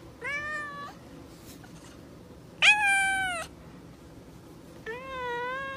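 Grey tabby cat meowing three times, about two seconds apart, the middle meow the loudest.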